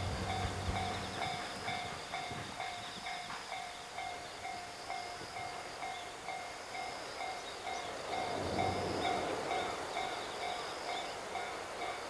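Japanese level-crossing warning bell ringing steadily, about two strokes a second, signalling that a train is approaching. A low hum fades out in the first two seconds, and a low rumble rises about eight seconds in.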